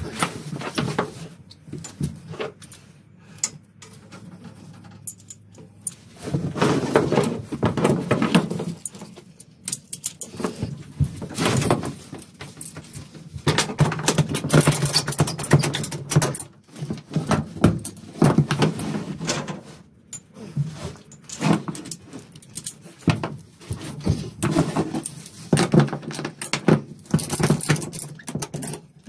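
Ratchet tie-down strap being hooked to a car's rear axle and cranked tight: metal hooks and the ratchet buckle clatter and click irregularly, with scattered knocks, in bursts of a few seconds each.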